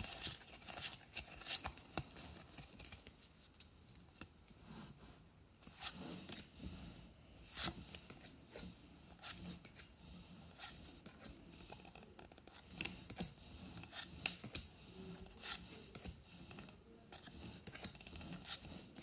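Pokémon trading cards being slid one by one across a stack held in the hands: faint, irregular scrapes and flicks of card stock rubbing on card stock.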